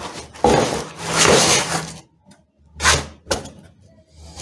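Unboxing handling noise: packaging rustling for a second or two, then two sharp knocks as the network switch is moved about and set down.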